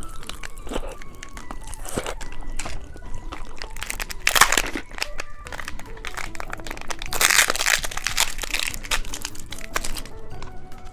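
Popping candy crackling and snapping as it is fried in a small pan: a dense, irregular crackle that swells twice. Soft background music plays under it.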